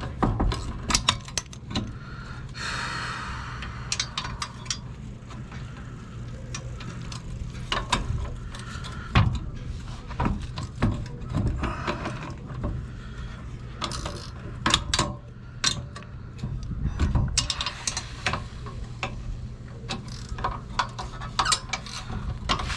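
Hand ratchet and wrench working the bolts of an RV's rear stabilizer jack: irregular clicking and metal clinks and knocks, with a brief scraping stretch about three seconds in, over a low steady hum.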